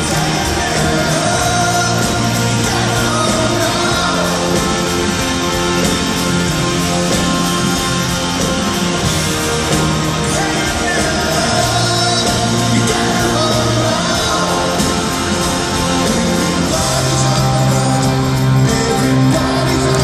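Rock band playing live: electric guitars and drums with a lead vocal singing over them.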